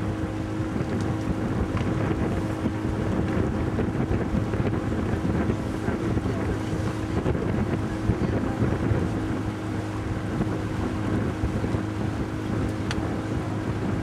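A boat's motor running steadily with an even low hum, with wind noise on the microphone.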